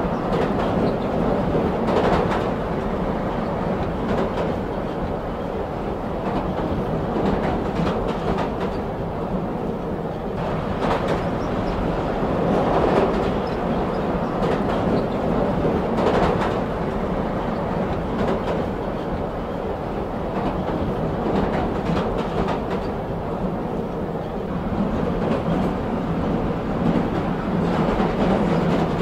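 Train running along the rails: a steady rumble of wheels on track, with occasional clacks of the wheels over rail joints.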